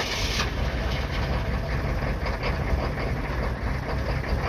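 1995 Chevy 3500's 6.5-litre V8 diesel running at cold idle, moments after a hard cold start, with a steady low pulsing.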